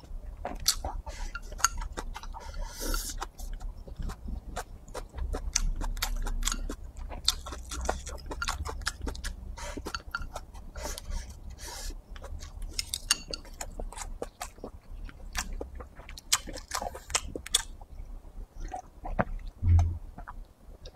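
Close-up eating sounds: rice and braised dried tofu chewed with many small, irregular wet clicks as they are shovelled in from a bowl with chopsticks. A brief low thud near the end as he drinks from a cup.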